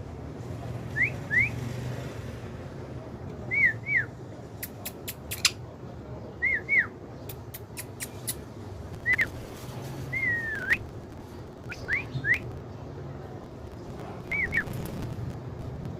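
A pet bird giving short whistled calls, mostly in quick pairs of rising-and-falling notes, every two or three seconds. Sharp clicks come in small clusters between the calls, most about a third of the way in.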